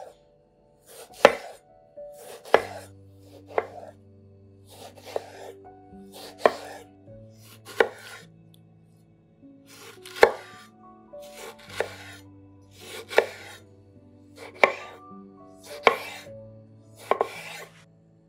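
Chef's knife slicing a tomato on a wooden cutting board: about a dozen separate cuts, roughly one every second and a half, with a short pause midway.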